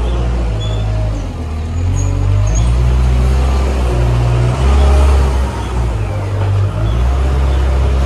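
Weidemann compact loader's engine running, its level rising and falling as the loader lifts a load of straw and drives off.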